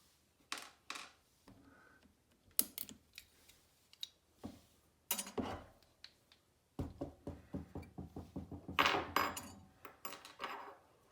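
Clicks and light metallic clinks of a TOMY coin mech's small parts (plate, bushing, ratchet wheel) being handled and pulled apart. Scattered single clicks at first, then a busier clatter through the second half.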